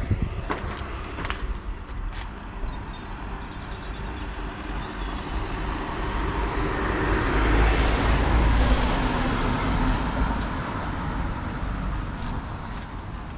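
A road vehicle passing nearby: a steady rumble and hiss swells to a peak about eight seconds in and fades away again. A few light clicks come near the start.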